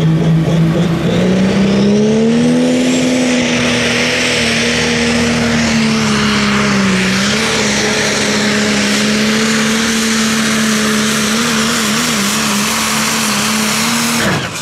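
John Deere pulling tractor's engine going to full power as the pull starts: the engine note climbs about a second in and is held high under load down the track. Near the end it drops away suddenly as the engine fails.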